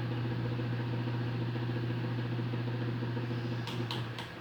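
Electric fan motor running on its lowest speed with a loud, steady electrical hum and buzz: excessive noise at low speed that the technician puts down to a defective run capacitor. Near the end come a few clicks and the hum dies away.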